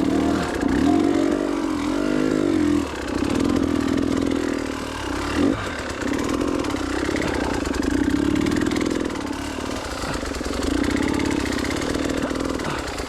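Enduro dirt bike engine running under load on a trail, its pitch rising and falling as the throttle is worked. It dies away at the very end.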